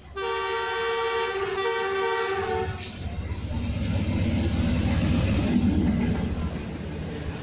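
Horn of a ZCU-30 diesel-electric locomotive sounding one long chord of about two and a half seconds. Then the locomotive's engine and the train's wheels rumble, louder as it passes slowly close by.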